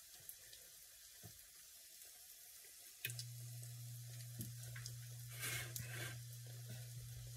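Faint sizzle of pancake batter frying in a buttered pan. About three seconds in, a steady low electrical hum switches on and holds.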